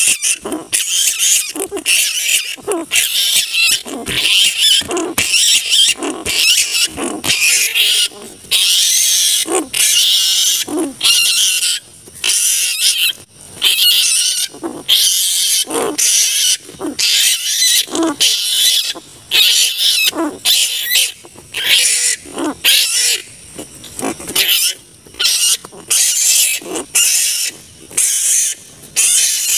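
Large flying foxes (kalong kebo, the giant kaluang fruit bat) screeching and squabbling: harsh, high-pitched calls in rapid overlapping bouts, broken by short gaps over and over. The recording is a lure call for these bats.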